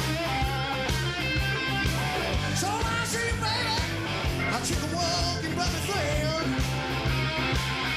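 Rock and roll song playing, with singing, guitar and a steady drum beat.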